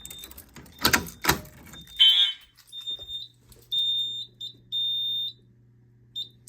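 Fire alarm horns sounding in simple-coded pattern for zone 1: a short, harsh horn blast about two seconds in, followed by several thinner, fainter half-second horn tones. A few sharp clicks come about a second in.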